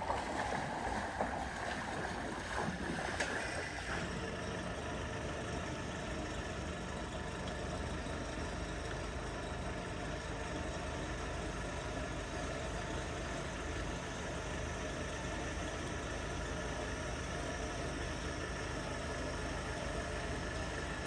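A vehicle engine idling steadily during a flood-water recovery, with a rushing noise and a few knocks over the first four seconds.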